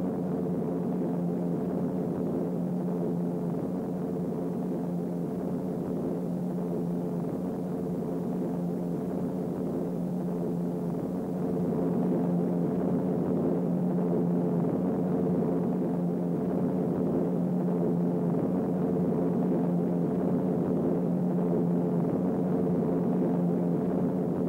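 Piston engines of a propeller aircraft droning steadily in flight, getting a little louder about halfway through.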